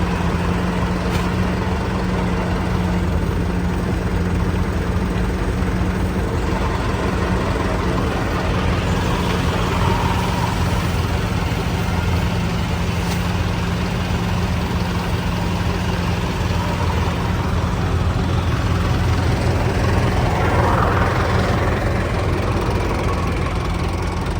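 Heavy engine of a rice-field machine running steadily at constant speed.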